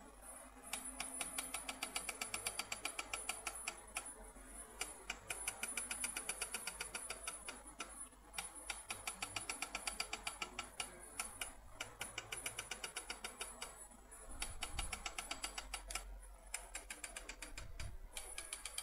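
Floppy drive stepper motor stepping the head along its lead screw under LinuxCNC control from the parallel port. It makes a rapid, even ticking of about ten steps a second, in runs broken by brief pauses as the motion stops and changes direction.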